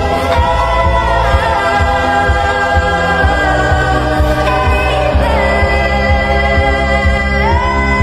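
Sped-up pop song mashup: a pitched-up female lead vocal sings long held, gliding notes over a pulsing bass beat.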